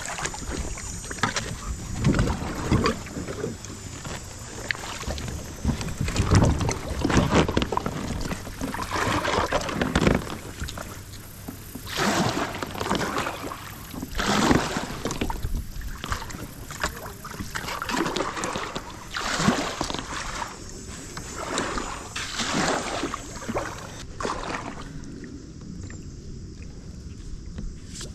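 Kayak paddle strokes dipping and splashing in creek water, a swoosh every two seconds or so, over a steady wash of moving water, easing off near the end.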